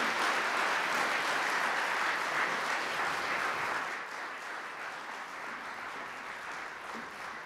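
Audience applauding, dying away over the last few seconds.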